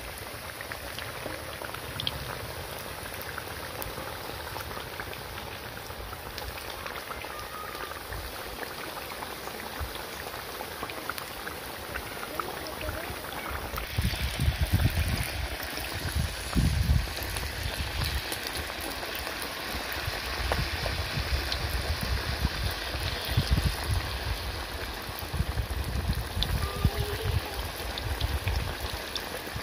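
Battered breadfruit slices deep-frying in a wok of hot oil: a steady crackling sizzle that grows louder about halfway through, with scattered low thumps in the second half.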